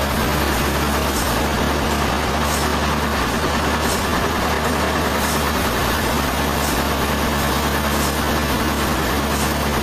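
Sawmill machinery running steadily with a constant low hum. A faint higher tick repeats about every second and a half.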